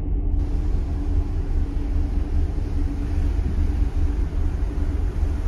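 Wind buffeting the microphone on the open deck of a cruise ship under way, a loud, unsteady low rumble over the hiss of the sea and a faint steady hum from the ship.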